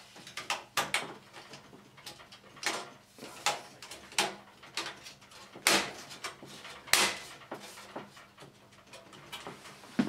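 Thin metal I/O back plate being pushed and snapped into the rear panel opening of a steel Cooler Master HAF 922 computer case: about a dozen sharp metallic clicks and knocks at irregular intervals, the loudest two a little past halfway.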